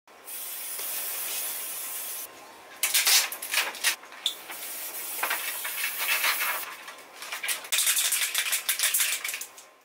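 Aerosol spray-paint can: a steady hiss of spraying for about two seconds, then fast rattling of the mixing ball as the can is shaken, alternating with more spraying and rattling again near the end.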